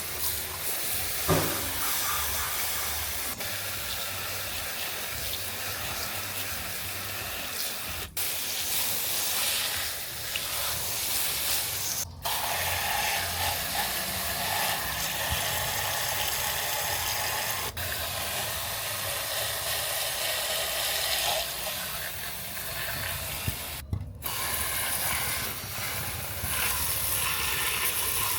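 Steady spraying hiss, cut off briefly several times.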